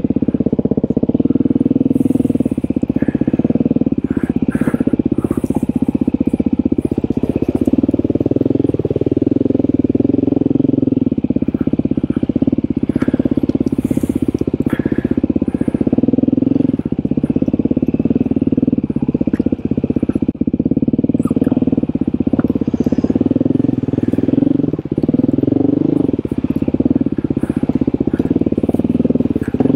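Off-road dirt bike engine running at steady moderate revs, its pitch wavering a little with the throttle, with scattered clicks and rattles from the bike on the trail.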